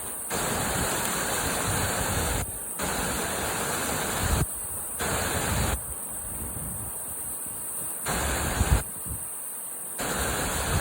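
Rushing whitewater of a small river: a steady noisy wash with irregular low rumbles and one sharper thump near the end.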